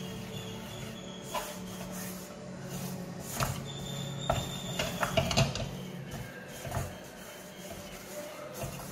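A spatula scrapes and stirs maida flour that is frying in vanaspati in a non-stick kadai, with a few sharper knocks of the spatula against the pan, over a steady low hum.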